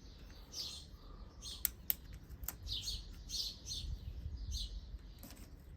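Small birds chirping in short, repeated high calls, with a few sharp clicks partway through.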